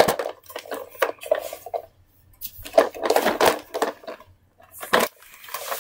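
Pink plastic toy car clattering and knocking as it is handled and jostled about by hand, in three spells of rattling with short pauses about two and four seconds in.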